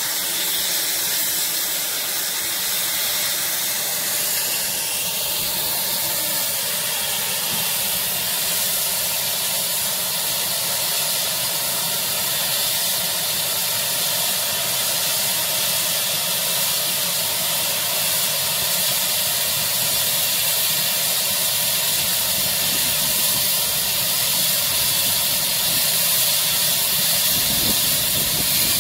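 GWR Small Prairie 2-6-2 tank engine No. 5541 blowing off steam through its safety valves: a loud, steady hiss, the sign of the boiler at full working pressure.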